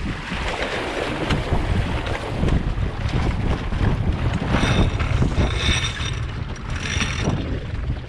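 Wind buffeting the microphone aboard an Impulse 26 sailboat under sail, a loud gusty rumble, with the rush of water along the hull beneath it.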